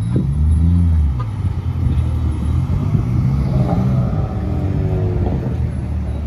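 Performance cars driving past one after the other with a loud, deep exhaust rumble. A higher engine note falls in pitch as the second car goes by.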